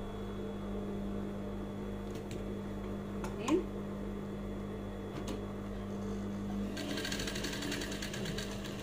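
Industrial lockstitch sewing machine: a steady hum with a few light clicks, then fast continuous stitching starts about seven seconds in as a trim is sewn onto a sleeve.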